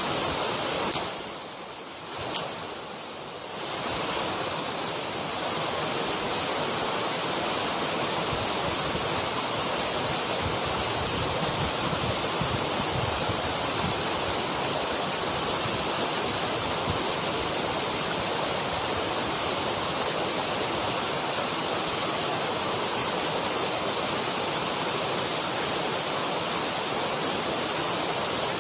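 Steady loud rush of a waterfall. About a second in it drops away for a few seconds, with two sharp clicks, then comes back steady.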